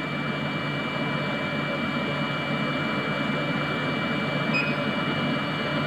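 Semi-automatic biochemistry analyzer running a wash cycle: its aspiration pump gives a steady, even whir.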